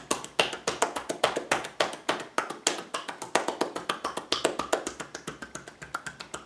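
Massage percussion (tapotement): both hands rapidly striking a client's bare back in a quick run of slaps, several a second.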